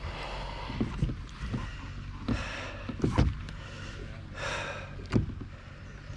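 Hollow knocks and clunks from a plastic Hobie Compass kayak and its pedal drive being handled by hand, the loudest about three seconds in, with two short rushes of hiss in between.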